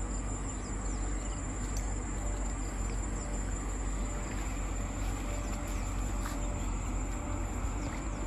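Insects trilling steadily in one continuous high-pitched tone, over a steady low rumble.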